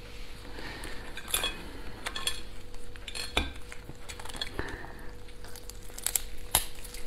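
Raw spiny lobster shells clicking and cracking as they are set on a ceramic plate, cut with a metal tool and pried apart by hand. The sound is a scatter of sharp clicks and snaps, with a louder crack about three and a half seconds in and another near the end, over a faint steady hum.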